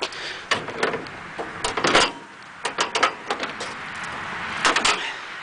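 Metal clicks and clanks from the sheet-metal housing of a 1943 M5 military generator being handled: its latches worked and a side panel opened, with the engine not running. A string of separate knocks, most close together around two seconds in and again near the end.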